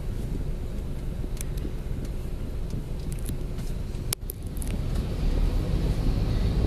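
Low engine and road rumble heard from inside a moving vehicle, with scattered light clicks or rattles through the middle and one sharp click about four seconds in. The rumble grows louder near the end.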